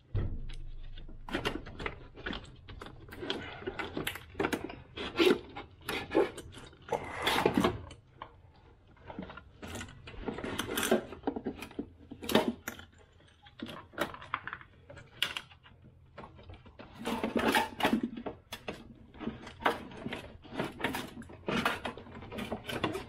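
Irregular knocks, clicks and scrapes of parts being handled in a Land Rover Discovery 3 engine bay: the brake master cylinder, its brake pipes and the vacuum brake booster being shifted and yanked about by gloved hands.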